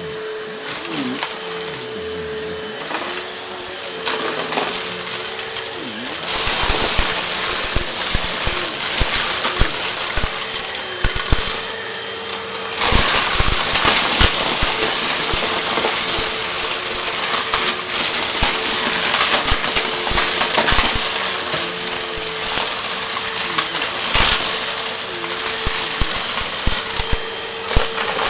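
Vacuum cleaner running with a steady motor hum while it sucks up crunchy debris, a dense crackle of bits rattling through it. It gets louder about six seconds in and again near the middle.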